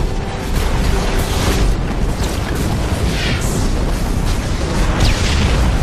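Film sound mix of explosions: deep, continuous rumbling booms with several sharp blasts, laid over background music.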